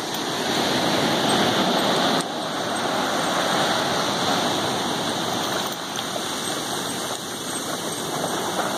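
Ocean surf washing up onto the beach, a steady rushing hiss of breaking waves, which drops suddenly in level about two seconds in.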